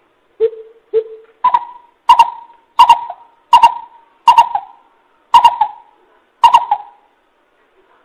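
Coucal hooting: a slow series of deep hoots, two lower notes followed by seven higher ones, each starting sharply and fading, the gaps widening slightly toward the end.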